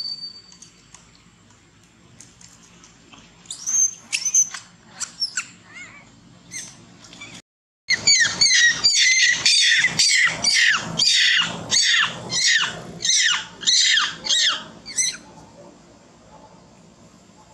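Long-tailed macaque screaming in distress: a few shrill squeals, then from about eight seconds in a rapid run of loud, high screams, each falling in pitch, which stops about fifteen seconds in.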